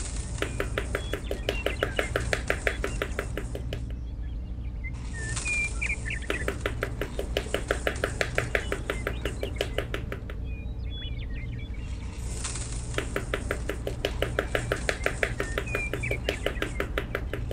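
Fast, even tapping, about eight taps a second, in three runs of roughly four seconds each, as small wooden sticks are driven upright into sand. Faint bird chirps sound in the background.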